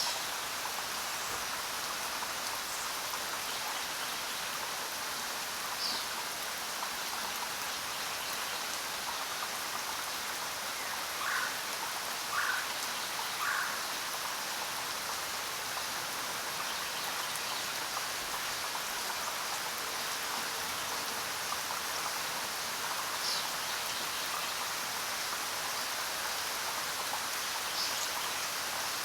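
Steady jungle rain falling. A few short calls stand out over it: three in quick succession about eleven to fourteen seconds in, and brief high chirps now and then.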